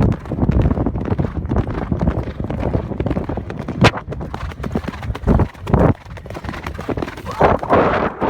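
A horse's hoofbeats, with irregular sharp thumps among a continuous rough noise.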